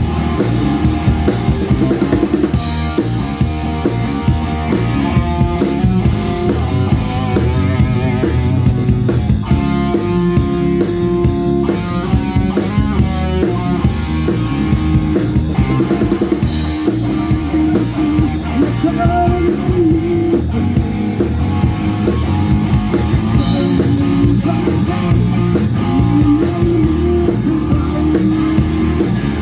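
A rock band playing live without vocals: a drum kit, electric guitars and bass. There are cymbal crashes about three seconds in, near the middle, and again later.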